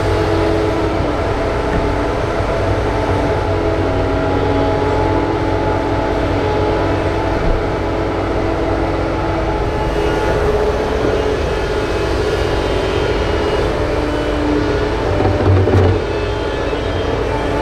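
Doosan DX225LCA crawler excavator's diesel engine and hydraulics running steadily under load as it digs and swings, with a brief louder surge near the end as it dumps a bucket of soil into a dump truck.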